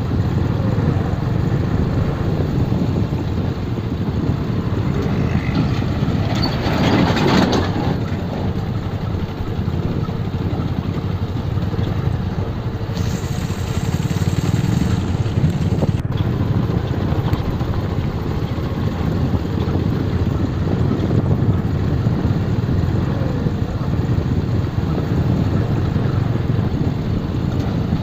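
Motorcycle running at low speed over a rough, stony dirt road, heard from on board as a steady engine and road rumble. A louder surge of noise comes about seven seconds in.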